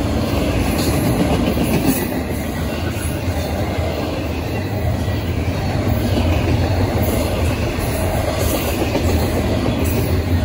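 Double-stack intermodal well cars of a freight train rolling past: a steady rumble of steel wheels on the rails, with occasional clacks.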